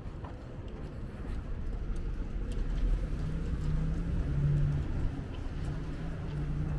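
Low rumble of road traffic, growing louder, with a low humming tone that comes and goes in short pieces from about halfway in.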